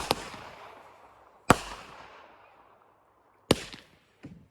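Consumer fireworks going off: four loud, sharp bangs about every one to two seconds, the first two almost together, each fading out over a second or so, then a fainter pop near the end.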